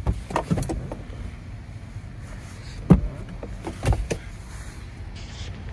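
A few scattered clicks and knocks inside a Jeep Wrangler's cabin, the loudest a sharp click about three seconds in and a small cluster about a second later, over a low steady rumble.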